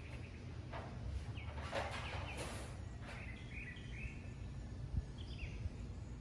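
Quiet background: a steady low hum with a few faint bird chirps and soft handling ticks.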